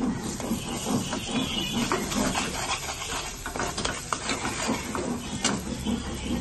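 Bean and potato curry sizzling in a black kadai over a gas flame, with a metal spatula scraping and clicking against the pan as it is stirred.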